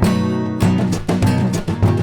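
Upbeat background music led by strummed guitar.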